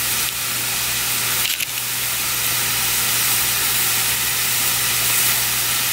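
Brook trout fillet frying skin-down in butter in a cast-iron skillet, a steady sizzle, with a low steady hum beneath it.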